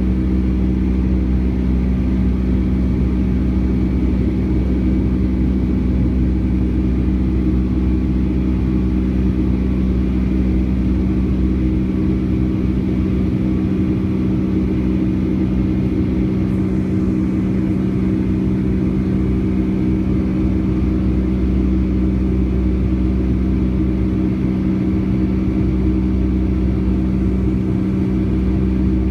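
Boeing 757-200's twin turbofan engines running steadily, heard inside the passenger cabin as a constant hum with several held tones over a deep rumble.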